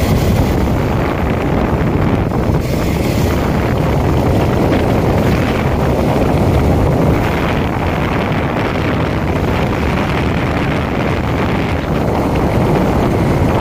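Wind rushing hard over the microphone of a phone filming from a motorcycle ridden fast on the open road, a steady loud rumble with the bike's engine and tyre noise underneath.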